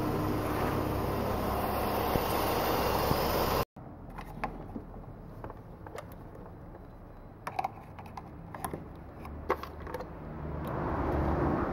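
Steady background noise, then, after a cut, scattered light clicks and clinks of a Midtronics battery tester and its clamp cables being handled by the car battery.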